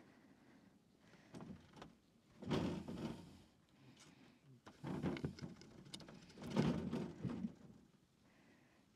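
Silver Fox rabbits scuffling in a wooden hutch with a wire floor: four short bursts of scrabbling and scraping as a buck tries to mount a doe that is refusing to breed.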